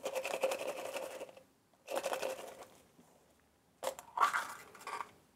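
Crinkly rustling and crackling of a plastic toy surprise egg and its wrapping being handled and opened, in three bursts.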